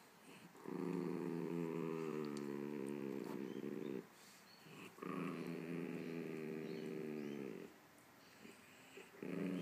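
Small dog's low, drawn-out growling grumble, typical of dogs 'talking' at each other in play. Two long growls of about three seconds each, then a short one near the end.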